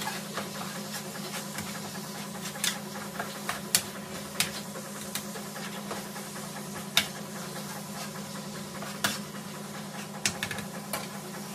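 Raw ground beef sizzling in a hot frying pan while a metal spoon scrapes and taps against the pan to break up the meat, giving scattered sharp clicks. A steady low hum runs underneath.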